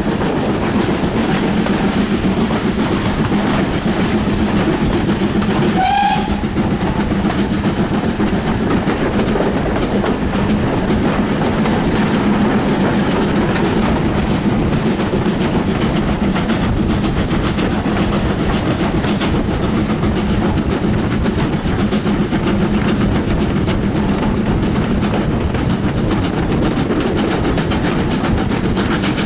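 BR Standard class 4 tank locomotive 80002 hauling its train, heard from a carriage window: a steady rumble and rush of wheels on rails and wind, with one short toot of the steam whistle about six seconds in.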